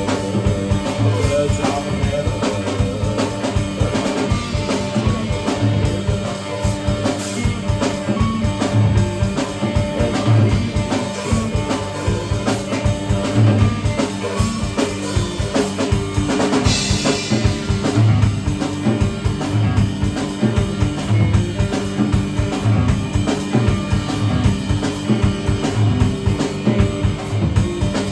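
Live band playing an instrumental passage: a steady kick-drum pulse with rimshots from the drum kit under guitar holding sustained notes.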